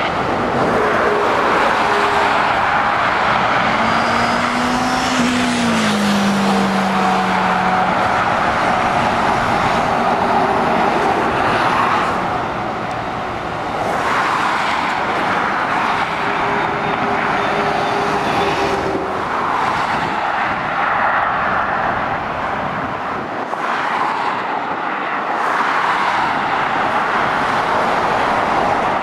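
Steady road traffic: lorries and cars passing one after another, mostly tyre and road noise, with a heavy diesel engine note that drops in pitch as one goes by about five seconds in. The noise eases briefly twice between passes.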